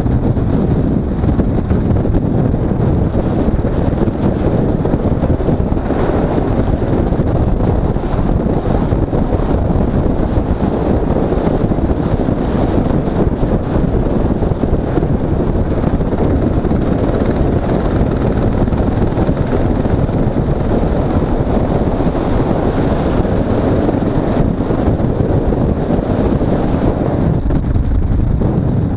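Motorcycle riding along a gravel road, heard as a steady rumble of wind on the microphone mixed with the bike's running noise, softening briefly near the end.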